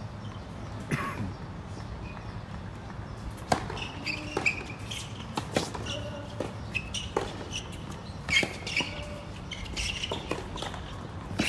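Tennis point on a hard court: a serve struck about three and a half seconds in, then racket-on-ball hits and ball bounces every second or two through the rally, with short high squeaks of shoes on the court.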